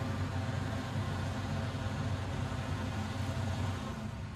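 Caterpillar hydraulic excavator's diesel engine running with a steady low hum, easing off slightly near the end.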